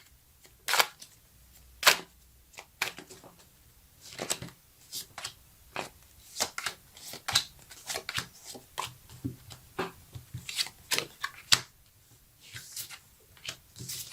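A deck of fortune-telling cards being shuffled and dealt out by hand: a run of irregular sharp snaps and soft slaps of card on card, with brief pauses between.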